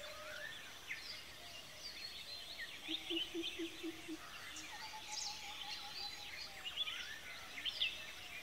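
Quiet outdoor ambience with many small birds chirping. About three seconds in comes a brief run of about six quick low pulses.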